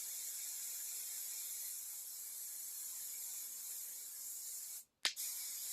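Aerosol hairspray being sprayed in a long, steady hiss, cut off briefly about five seconds in and then resumed.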